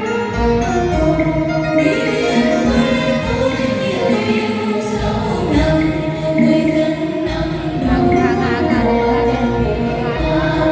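A group of male and female singers performing a ví giặm-style Vietnamese folk song in chorus, amplified through microphones over instrumental accompaniment.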